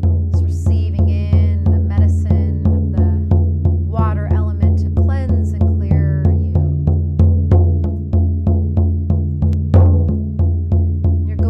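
Hide frame drum beaten steadily with a beater, about three even beats a second with a deep booming resonance: a shamanic journey drumbeat. Brief wordless vocal calls rise over the drumming a few times.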